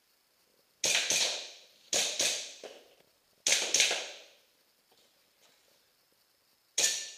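Airsoft pistol shooting at targets: sharp cracks in quick pairs, three pairs spaced a second or so apart, then another crack near the end, each with a short echo.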